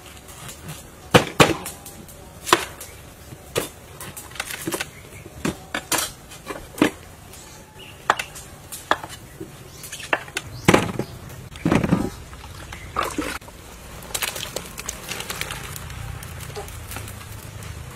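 Cleaver chopping through pumpkin on a wooden cutting board: a series of sharp knocks, roughly one a second and unevenly spaced. Near the end, a softer patter of small knocks as chunks of pumpkin and radish are tipped into a pot of water.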